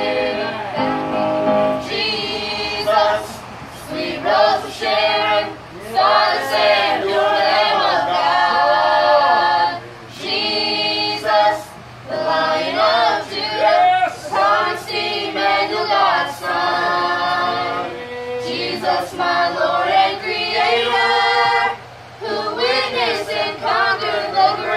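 Small mixed choir of young men's and women's voices singing together, phrase after phrase with short pauses between.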